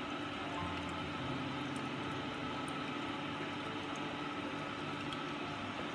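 Steady water-like bubbling hiss with a faint low hum from the running equipment of an indoor paludarium.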